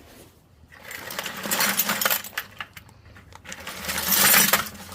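Loose metal scrap and hardware clinking and clattering as hands rummage through a bucket, in two bursts, the second louder.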